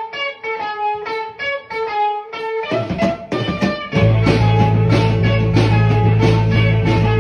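Background music: a guitar picking single notes, joined about four seconds in by a steady bass line and fuller band, getting louder.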